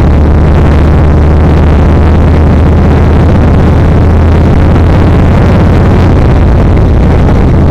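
Yamaha XVS1300 V-twin motorcycle running steadily on the road, loud and unbroken, with a deep low drone under a dense rush of noise.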